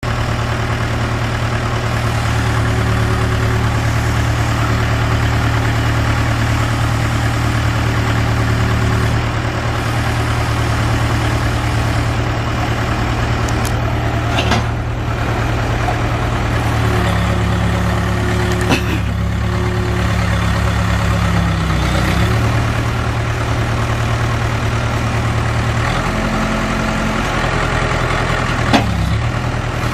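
Case 580K backhoe loader's four-cylinder diesel engine running steadily, its note shifting a few times as the engine speed changes. Three sharp clicks or knocks come over it, about halfway through, a few seconds later and near the end.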